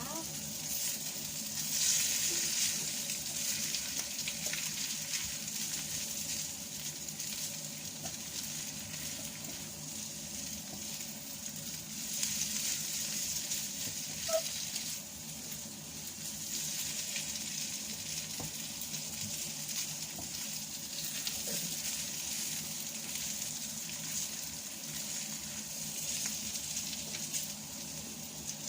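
Mie goreng (Javanese fried noodles) sizzling steadily in hot oil in a pan as it is stir-fried, with an occasional light click of the spatula.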